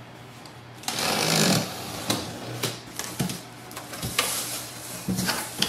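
Cardboard box being opened by hand, its flaps scraping and rustling, with a longer scrape about a second in followed by several sharp cardboard knocks and clicks.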